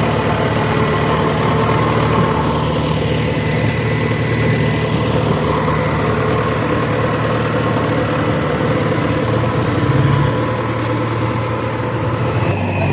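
Heavy diesel engine of a tractor or backhoe loader idling steadily.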